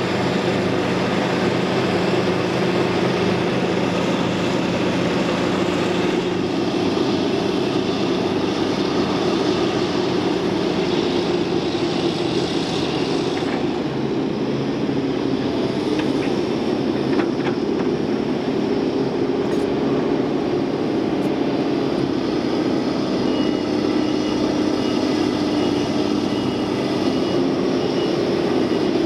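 Diesel engines of CAT 637 twin-engine push-pull scrapers running steadily under load. A faint, high, pulsing tone comes in near the end.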